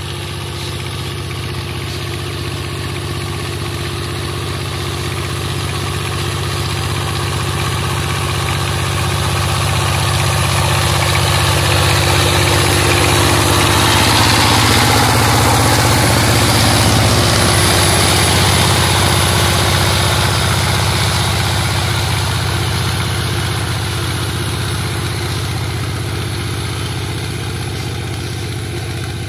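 Two-wheel walking tractor's single-cylinder diesel engine running steadily as it tills a flooded paddy field. It grows louder as the tiller comes close, loudest about halfway through, then fades as it moves away.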